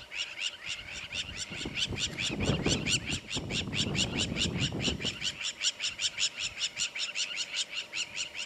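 A wild animal calling in a fast, even train of short high chirps, about six a second, without pause. A low rumble rises under it about two seconds in and fades about five seconds in.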